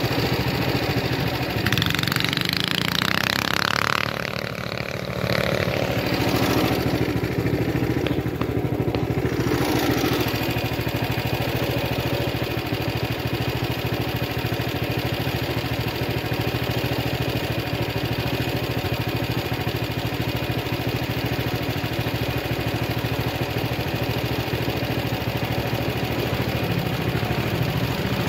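Small mini bike engine running steadily.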